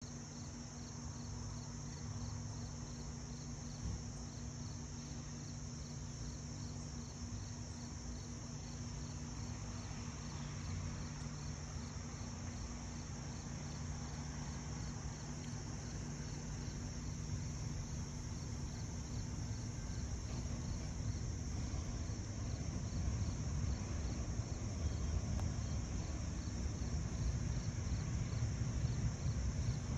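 Steady high chirring of insects such as crickets, with a faint chirp repeating a couple of times a second, over a low rumble that grows louder through the second half.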